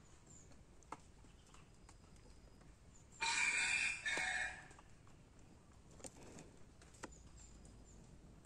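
A red junglefowl rooster's crow, one loud call of just over a second with a short break near its end, over a quiet background of faint small-bird chirps and a few faint ticks.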